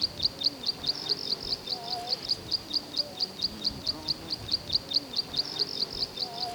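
A steady run of short, high-pitched chirps, evenly spaced at about four or five a second, with fainter low wavering sounds underneath.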